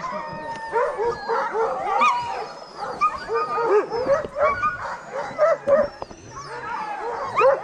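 Many harnessed sled huskies yelping, yipping and barking over one another in a dense, unbroken chorus. It is the eager racket of sled dogs keen to be off on a run.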